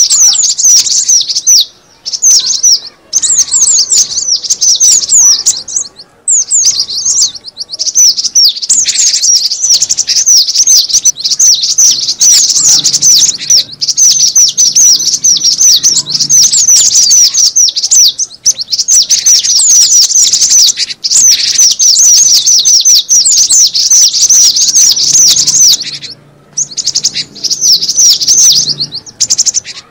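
Gelatik batu (cinereous tit) calls played as a bird-lure recording: rapid, high chirping notes in long unbroken runs, with a few short breaks.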